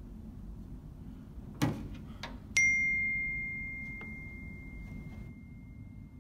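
A soft thump, then about a second later a single bright ding: one clear tone that starts sharply and fades slowly over about three seconds, the sound of a phone's message notification.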